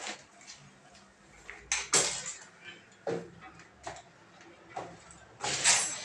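Metal hand tools clinking and knocking: a few sharp separate clinks, then a busier clatter near the end.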